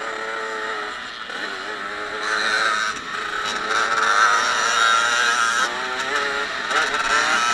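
Dirt bike engine accelerating hard on a motocross track, its pitch climbing and dropping several times as it revs out and shifts, over a steady rush of wind and engine noise picked up by the bike's own camera. It gets louder about two seconds in.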